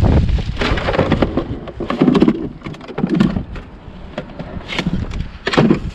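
Wind buffeting the microphone in uneven low rumbles, with irregular clattering and rustling of scrap being handled and shifted.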